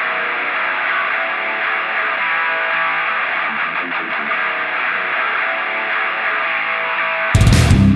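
Guitar-led background music playing steadily; near the end it jumps to a louder, fuller passage with heavy bass.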